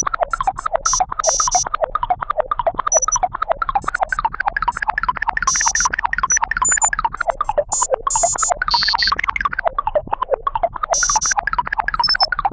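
Rapid run of short synthesized electronic blips, several a second, their pitch bouncing up and down, with scattered short high-pitched chirps among them.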